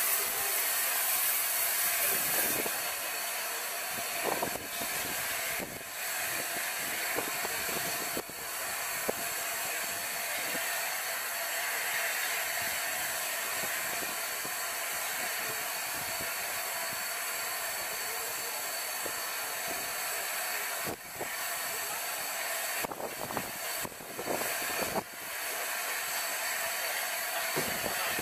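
LNER A4 Pacific steam locomotive No. 60009 Union of South Africa standing in steam, with a steady hiss of escaping steam that dips briefly now and then.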